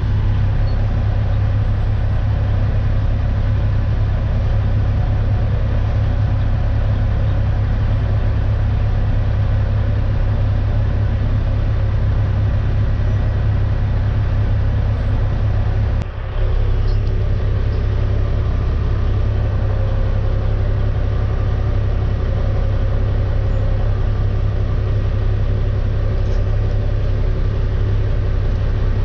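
Dump truck's diesel engine running steadily, heard from inside the cab as a loud, even low rumble, with a brief dip about sixteen seconds in.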